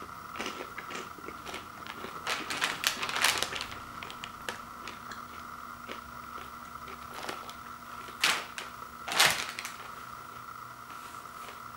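Crinkling and crackling of a metallized plastic snack bag being handled, in quick clusters over the first few seconds. Two louder crinkles about eight and nine seconds in, as the bag and the popcorn bowl are set down on a wood floor. A faint steady hum runs underneath.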